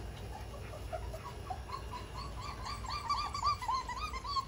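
Three-week-old German Shepherd puppies squeaking and whimpering in short rising-and-falling squeaks, sparse at first, then coming quickly and overlapping from about halfway through.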